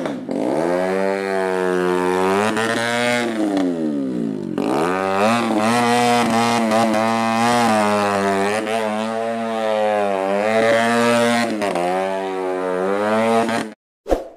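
Go-kart engine running and revving, its pitch dipping low and climbing back up twice. The sound cuts off abruptly near the end, followed by a short chime.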